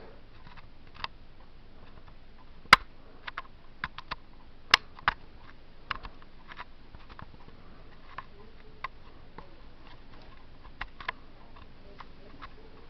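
Handling noise from a handheld camcorder: irregular sharp clicks and taps, some louder than others, over a low steady hiss.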